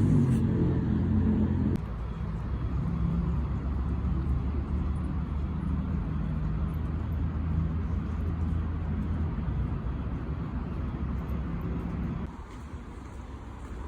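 Low, steady vehicle rumble, like a car's engine and road noise, dropping abruptly in level twice, just under 2 seconds in and about 12 seconds in.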